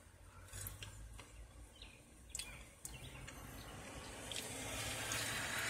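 Faint outdoor traffic ambience heard from inside a parked car with the window down: a few small clicks and rustles of fries being eaten, then a low hum and rising hiss of a passing car from about halfway in.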